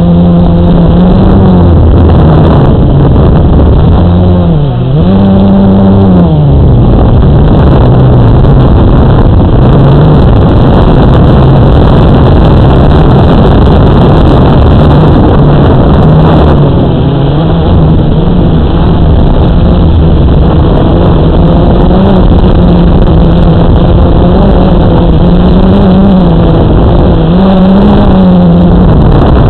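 Model airplane's motor and propeller heard from a camera on board in flight, loud and close, its pitch dipping and rising again several times as the throttle changes, over heavy rushing air noise.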